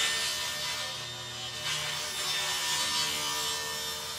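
Table saw blade ripping a full sheet of 3/4-inch plywood lengthwise down the middle, with the saw's motor humming underneath. The cutting noise eases briefly about a second in, then picks up again as the sheet is fed on.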